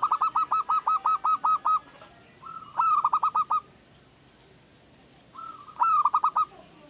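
Male zebra dove (perkutut) cooing its song three times: each phrase is a drawn-out opening note followed by a quick run of staccato coos, the first of about a dozen notes, the next two shorter at about five notes each. It is a raw, newly kept bird still learning its song.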